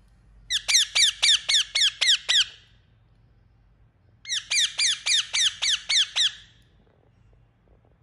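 Indian ringneck parakeet chirping loudly in two runs of about eight quick calls each, roughly four calls a second, every call dropping in pitch; the second run starts after a pause of under two seconds.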